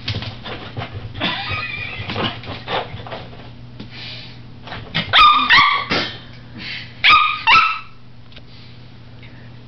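Papillon, a small dog, whining early on and then giving high-pitched barks in two quick clusters about halfway through and again near the end: the alarm barking of a frightened dog.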